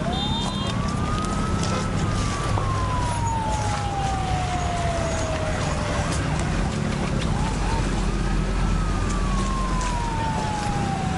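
Emergency vehicle siren wailing in slow cycles: the pitch climbs quickly, then falls slowly over several seconds, twice, over a steady wash of loud street noise.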